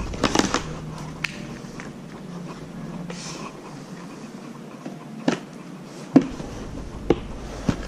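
Handling noise: scattered light knocks and clicks as a plastic bucket and cardboard are moved about, the sharpest knock about six seconds in, over a faint steady low hum.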